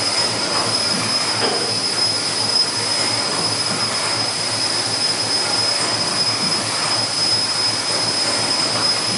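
A steam tug's reciprocating steam engine turning over on steam piped in from a boiler on the quayside: a continuous loud hiss with a steady high-pitched tone running through it.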